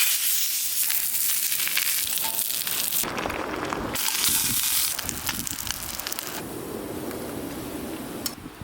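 Crackling and sizzling, as of a wood fire and food frying over it, dense with sharp pops. The sound changes abruptly about three, four and five seconds in.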